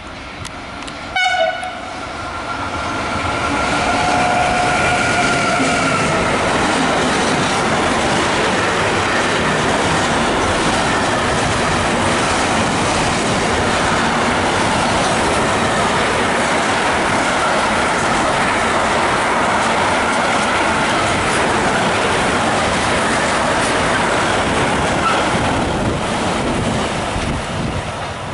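SBB Cargo Re 474 electric locomotive sounding its horn as it approaches: a sharp blast about a second in, then a held horn note for a few seconds. After that comes the steady rumble and wheel clatter of the long container freight train's wagons passing close by, easing near the end.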